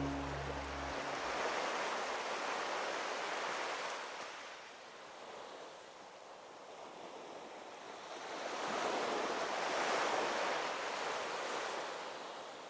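Ocean surf: waves wash in and recede in two slow swells, the first about a second in and the second near the end.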